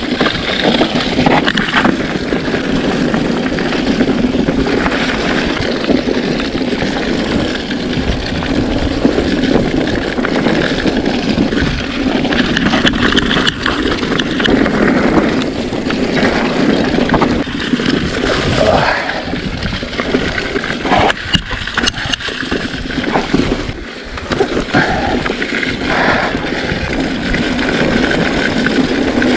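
Riding noise from an electric mountain bike on a forest trail, picked up by a GoPro: steady wind buffeting on the microphone over tyre and trail rumble.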